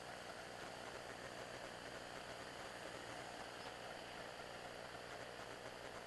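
Steady, even rushing of shallow creek water running over rock.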